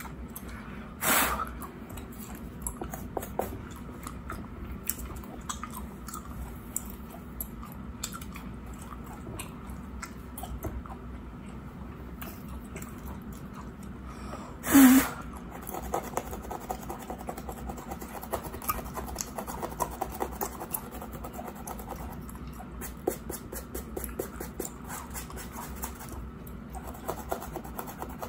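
Close-miked gum chewing with wet smacks and clicks, over the light scratching of a rat-tail comb's pointed tail on a mannequin head's scalp. Two much louder brief sounds stand out, about a second in and about halfway through.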